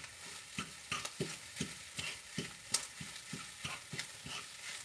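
Egg and chorizo sizzling in a frying pan while a utensil stirs and scrapes through it, about three strokes a second over a steady hiss.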